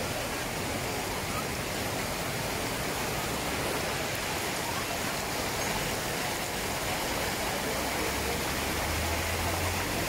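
Steady rush of water pouring over rock ledges and through shallow rapids of a river cascade.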